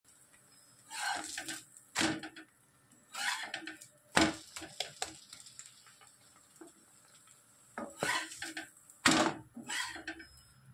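Spatula scraping and knocking against a dosa tawa in about six short bursts, as a cooked egg dosa is loosened and lifted off the griddle.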